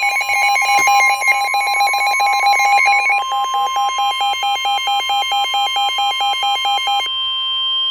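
Emergency Alert System alarm for a severe thunderstorm warning: a loud, steady single alert tone under rapidly alternating electronic beeping tones. The beeping changes pattern about three seconds in, pulsing about six times a second, and stops about a second before the end, leaving the steady tone alone.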